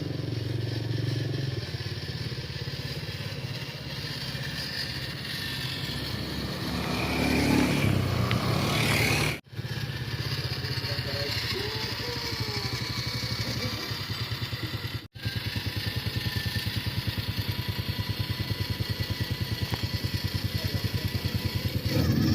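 Off-road motorcycle engine running steadily with an even firing pulse, broken twice by an abrupt, instant dropout.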